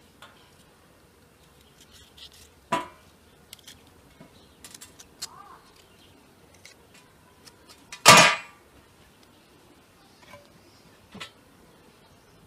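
A knife and pepper pieces tapping and clicking on a stainless steel tray while hot red peppers are cut open and seeded. Two louder knocks on the metal come about three seconds in and about eight seconds in; the second is the loudest and rings briefly.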